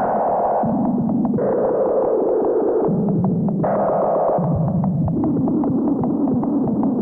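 Synthesizer drone/noise music: a steady ticking pulse under layered tones that jump back and forth between a low and a higher register every second or two.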